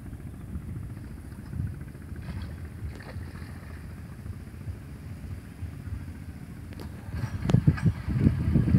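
Low rumble of wind buffeting the microphone, getting louder and gustier near the end.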